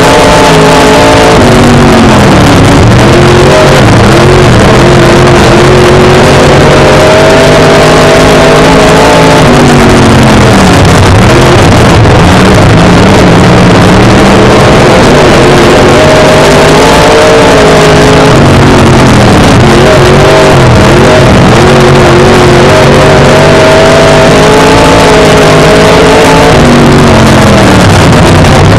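Dirt-track modified race car's V8 engine heard from inside the cockpit at racing speed, the revs climbing and then dropping back sharply about every eight seconds as the car laps the oval. It is recorded at the microphone's limit, so the sound is overloaded.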